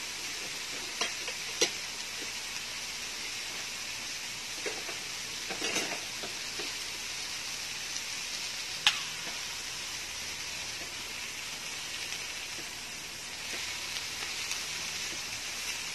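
Chicken slices and crab sticks sizzling steadily on a round Korean-style grill pan, with a few sharp clicks.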